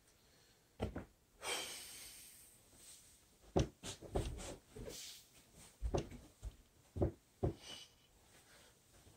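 Dull thuds of bare feet and hands landing on a carpeted floor during burpees, about half a dozen in quick succession through the second half, with breathing between.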